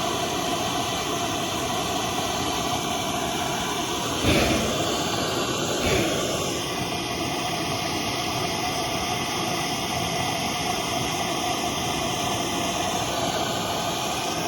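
Steady hiss of a propane torch burning while a bolt is heated, with two short knocks about four and six seconds in.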